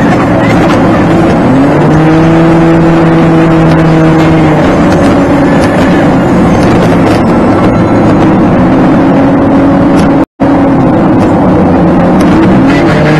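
Car engine and road noise inside the cabin, played back at double speed so the engine hum is pitched up; the engine note rises about a second and a half in, then holds steady. The sound cuts out for a split second about ten seconds in.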